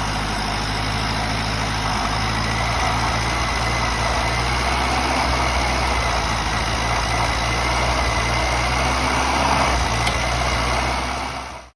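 Nissan Hardbody pickup's fuel-injected engine idling steadily, with a faint high whine over it; the sound fades out near the end.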